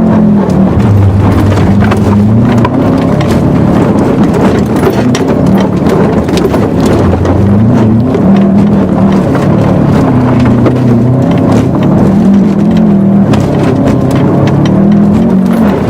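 Car engine running hard, its note rising and falling again and again as the throttle is worked through a slide in mud, with a steady clatter of knocks and rattles over it.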